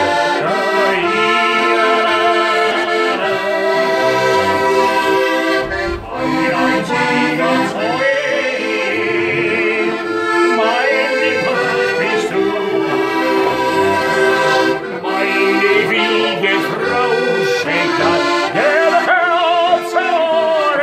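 Button accordion playing a traditional folk tune in full sustained chords, with a brief dip in loudness about six seconds in.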